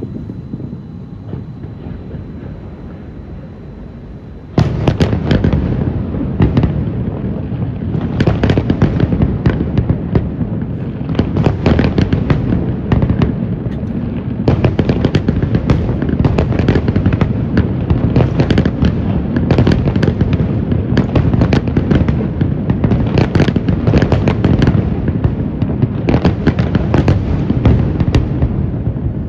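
Fireworks display: after a few seconds of lower, steady background noise, a dense barrage of bangs and crackles starts suddenly about four and a half seconds in and keeps going without a break.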